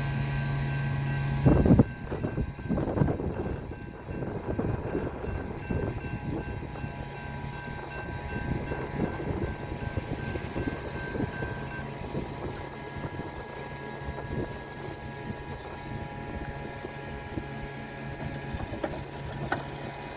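BNSF freight train of autorack cars passing at speed: steel wheels clacking and banging over the rail joints above a steady rumble. A low engine hum is loudest at the start and drops sharply with a loud bang about a second and a half in, then continues faintly under the clanking.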